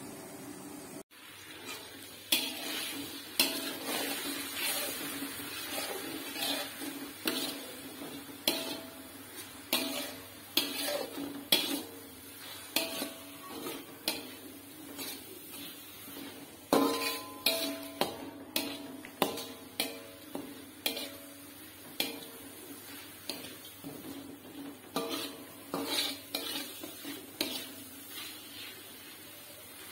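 Metal spoon stirring and scraping chopped chili-shallot spice paste in a wok, clanking against the pan again and again, some strikes leaving a short metallic ring, over a faint sizzle of the paste frying in oil.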